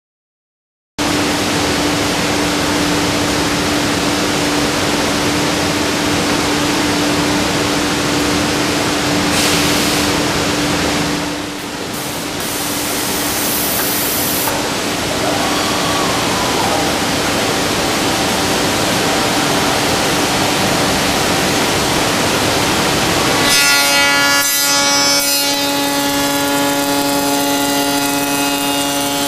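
Busellato Jet Optima C21 CNC machining center running: a loud, steady rushing noise with a constant hum, starting about a second in. About twenty-three seconds in, a higher whine made of several steady tones joins, as the machine's spindle and tooling come into play on the door blank.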